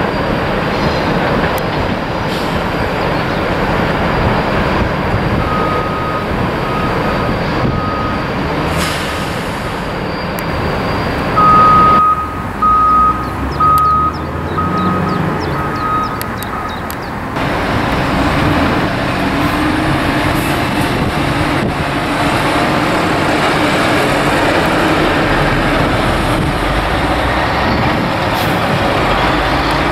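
Heavy diesel engines running steadily. Through the middle stretch a reversing alarm sounds a string of short, even beeps, loudest a little under halfway through.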